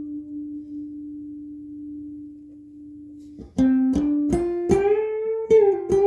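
Electric guitar fitted with Seymour Duncan Zephyr humbucker pickups, played single notes in a clean tone: one held note fades away for about three seconds, then a quick run of picked notes follows, with one note bent up and back down near the end.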